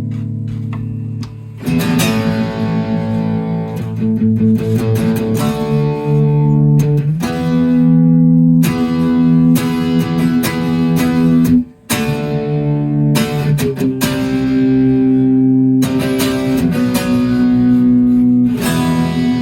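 Silvertone 1446 electric guitar being played for a tone test: strummed chords ring out and change every second or two, with a brief break about twelve seconds in.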